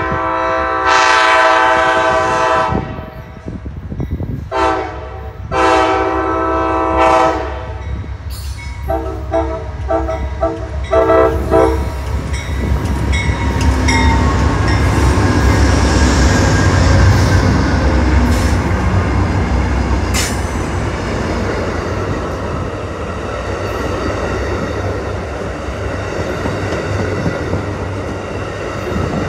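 Air horns of Amtrak GE P42DC diesel locomotives sounding for a road crossing: a long blast, a short one and another long one, then a run of short blasts. Then the locomotives' diesel engines run past at speed, followed by the steady rumble and clatter of the passenger cars' wheels on the rails.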